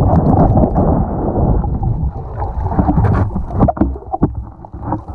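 Muffled rushing and rumbling of water heard underwater as a freediver swims, easing off partway through, with a few sharp clicks or knocks near the end.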